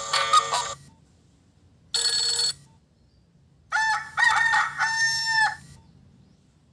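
Nokia 1110i phone speaker playing short snippets of its built-in ringtones, tinny electronic tones that stop abruptly with short silences between. A tone ends just under a second in, a half-second tone comes about two seconds in, and a two-second tone with sliding rising-and-falling pitches starts near four seconds.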